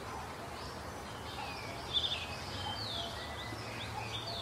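Faint birdsong: scattered short chirps and gliding whistles over a low, steady background noise, with one slightly louder chirp about two seconds in.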